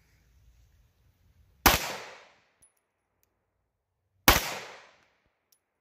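Two gunshots from a short-barrelled .380 ACP pistol, about two and a half seconds apart, each trailing off with a brief echo.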